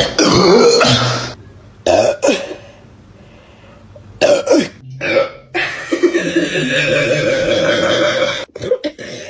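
A woman belching and coughing in several separate bursts while chugging carbonated Sprite: the fizz coming back up.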